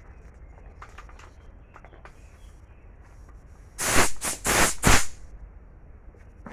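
About four short, loud blasts of compressed air hissing in quick succession, about four seconds in, over a low steady background hum.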